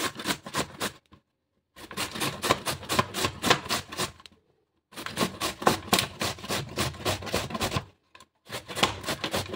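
Bottle gourd (lauki) being grated on a handheld metal box grater: quick rasping strokes, about five a second, in runs broken by three short pauses.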